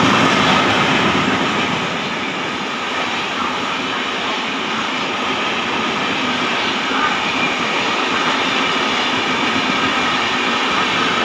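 A line of Indian Railways LHB passenger coaches passing at speed. The wheels on the rails make a steady, dense running noise that is loudest at the start.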